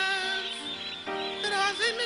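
A man singing a high, wavering melody with glides up in pitch, over steady instrumental backing.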